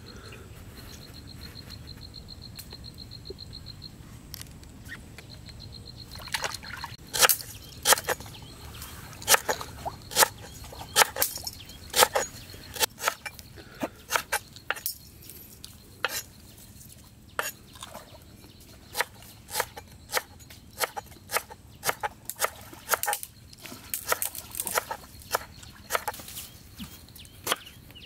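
A high, fast-pulsing trill for the first several seconds, then a long run of sharp knocks at an uneven pace, about one or two a second.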